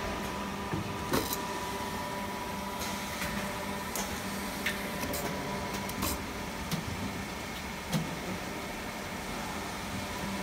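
Vertical injection molding machine running with a steady hum, with scattered sharp clicks and knocks from its moving parts, the loudest about a second in.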